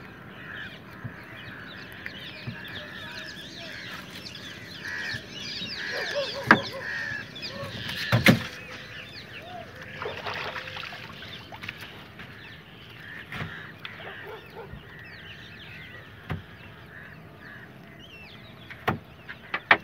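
Many birds calling at once in a steady chorus of short chirps and calls. A few sharp knocks cut through it, the loudest about six and eight seconds in.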